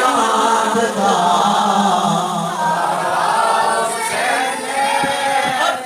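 Voices singing a slow devotional chant in chorus, holding long, wavering notes.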